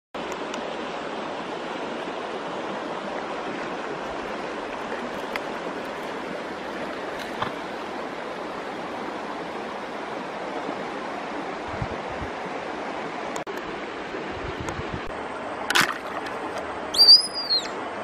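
Steady rush of a flowing river or stream, with a few faint knocks. Near the end a sharp click, then a whistled tone that rises and falls in an arch.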